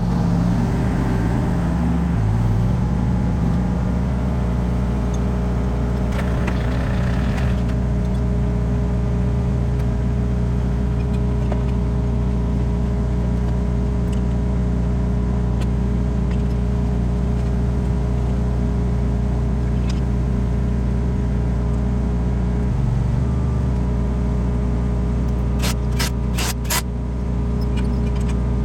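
Diesel engine idling steadily, with a few quick sharp clicks near the end.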